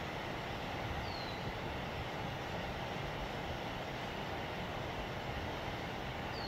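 Steady outdoor background rumble and hiss, with a short high chirp falling in pitch about a second in and another at the end.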